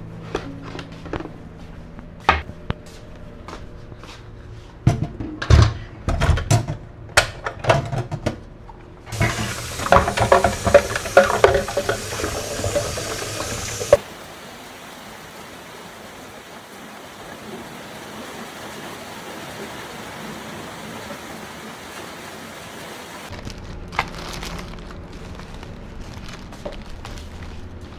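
Water running from a tap into a sink, heavy and clattering for a few seconds, then a steadier flow that stops about 23 seconds in. Scattered knocks and clicks of items being handled come before and after it.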